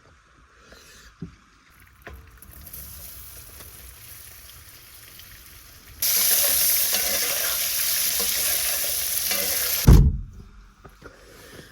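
Potatoes frying in a pan of butter, oil and steak juices: a faint sizzle that jumps to a loud, steady sizzle about six seconds in, ending with a thump about four seconds later.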